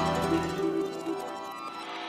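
Background music: soft plucked-string notes fading out.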